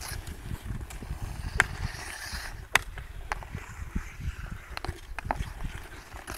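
Hockey sticks cracking against the puck and the ice, sharp clacks several times with the loudest about three seconds in, over skate blades scraping the ice and a low wind rumble on the microphone.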